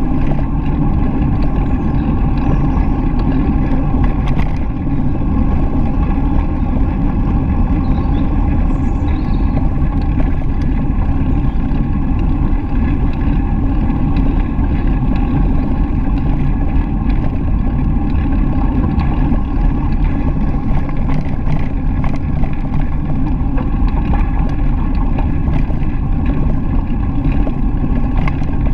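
Steady low rumble of wind and ride vibration picked up by a bicycle-mounted GoPro action camera rolling along a gravel forest track.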